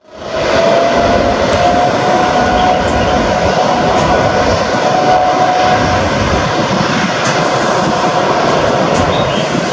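Jet engine noise from a Boeing 787-8's Rolls-Royce Trent 1000 turbofans as the airliner moves along the runway: a loud, steady roar with a thin, steady whine on top. It fades in at the start.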